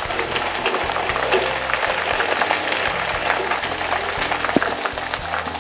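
Tempe pieces deep-frying in hot oil in a wok, sizzling steadily with dense small crackles, while a wire spider strainer and spatula scoop them out of the oil.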